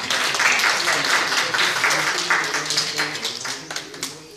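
A small group of people clapping, with voices talking underneath; the clapping dies away near the end.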